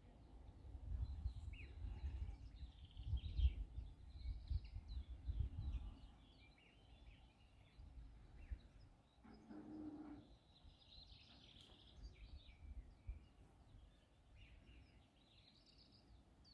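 Small birds chirping and singing, with wind buffeting the microphone in low rumbling gusts that die away after about six seconds.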